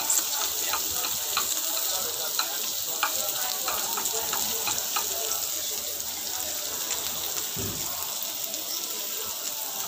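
Sliced bitter melon and onion sizzling as they are stir-fried in a nonstick wok, with wooden chopsticks clicking against the pan now and then as they stir.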